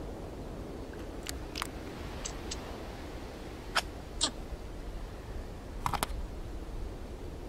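Cartoon sound effects: about eight short, sharp clicks and squeaks, some in quick pairs, over a steady hiss of background ambience.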